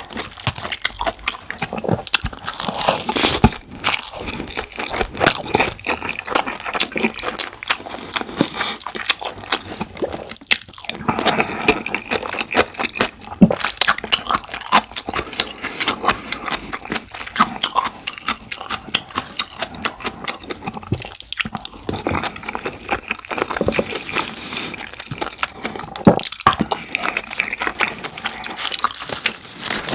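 Close-miked eating of rice with black bean sauce and curry, with kimchi: chewing with many quick wet clicks and crackles from the mouth.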